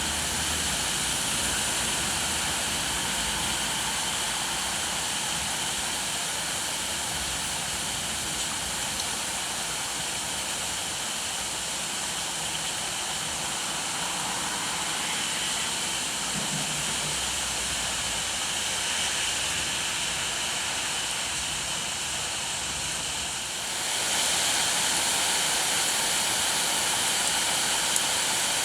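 Steady rain falling, a dense even hiss; it steps up louder about five seconds before the end.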